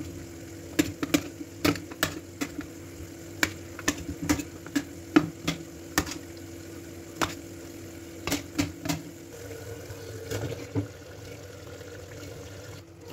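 Knife cutting boiled potatoes on a stainless steel plate, the blade clicking sharply against the plate at irregular intervals, about one to three clicks a second, growing sparser after about nine seconds.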